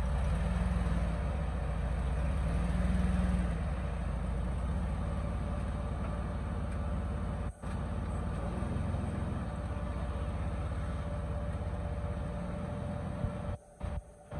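Engine of a lifted Toyota 4Runner running steadily at low revs as it crawls slowly over boulders. The sound cuts out briefly about halfway through and drops away in several short gaps near the end.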